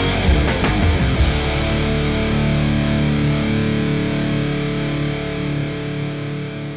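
Outro music: distorted electric guitar rock, with drums stopping about a second in and a final chord ringing out and slowly fading.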